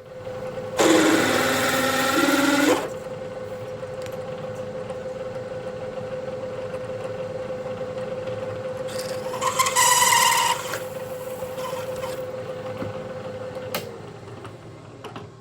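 Vertical milling machine spindle running a 5/8 inch reduced shank drill through a plate pre-drilled with a 3/8 inch pilot hole. There is a steady hum with two loud bursts of cutting noise and squeal as the drill bites, about a second in and again near ten seconds. The hum stops with a click near the end.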